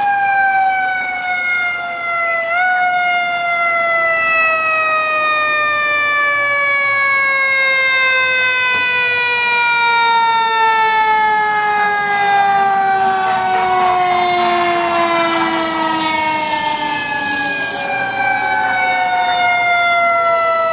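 Fire truck siren sounding one long, slowly falling wail that kicks briefly upward about two and a half seconds in. A second siren wails up and down more faintly in the second half.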